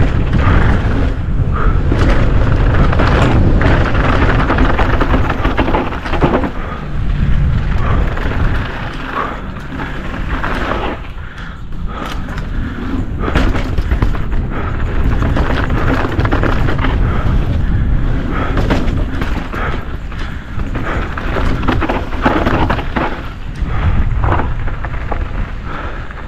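Downhill mountain bike ridden fast over rough trail: wind rumbling on the microphone, with frequent rattles and knocks from the bike over bumps. The rumble is heaviest for the first six seconds and swells again near the end.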